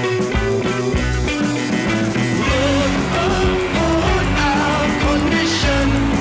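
Background music with a steady beat and a gliding melodic line.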